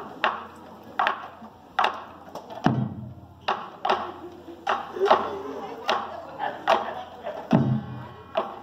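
Korean traditional drums, janggu hourglass drums and a buk barrel drum, beating a loose rhythm of sharp strokes about every half second to second for a masked dance, with two deep bass strokes.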